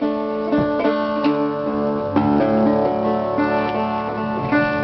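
Dobro resonator guitar played, single plucked notes ringing out over a held low bass note.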